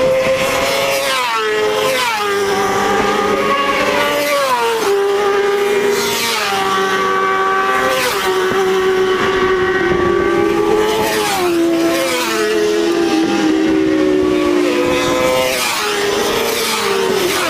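600–1000cc racing superbikes passing flat out one after another at high revs. Each engine note drops sharply in pitch as its bike goes by, several times over.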